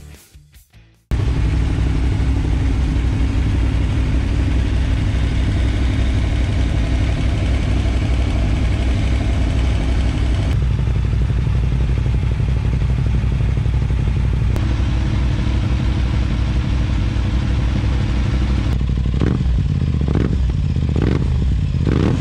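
Aprilia RS 660 parallel-twin and Tuono V4 1100 Factory V4 engines idling steadily as they warm up, starting abruptly about a second in. Near the end the RS 660, fitted with an Akrapovic full-system race exhaust, is revved in four short blips about a second apart.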